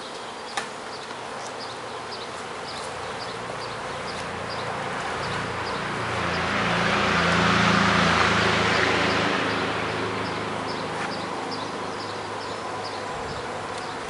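Honeybees of a busy colony buzzing around an opened wooden hive: a dense, steady hum with the low drone of bees flying close, swelling to its loudest about halfway through.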